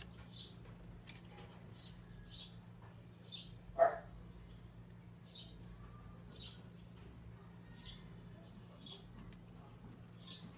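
Faint bird chirping, short high chirps about once a second, over a low steady hum, with one brief louder sound about four seconds in.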